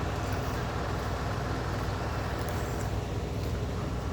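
Steady rumble of a car driving, engine and road noise with no sudden events.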